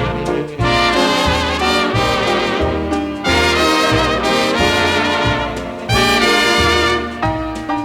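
Dance band music from a polka-and-ballroom record: trumpets and trombones playing a melody over a steady, pulsing bass beat. Near the end the playing turns to shorter, detached notes.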